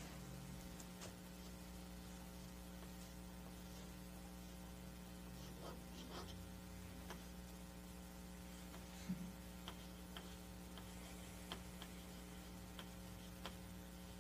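Steady low electrical mains hum, with a few faint scattered clicks and a soft knock about nine seconds in.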